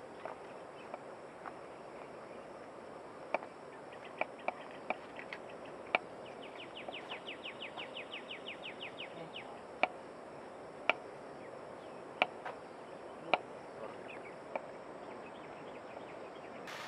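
Knife slicing button mushrooms on a wooden cutting board, with a sharp tap each time the blade meets the board, irregularly about once a second. Midway a bird gives a rapid trill of about six notes a second for around three seconds, over a steady outdoor hiss.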